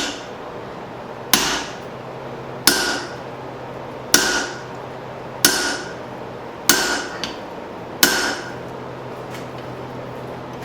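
Six ringing hammer blows, about one every 1.3 seconds, on a punch driving through the hot steel of a hammer head to punch out its eye. A steady low hum runs underneath.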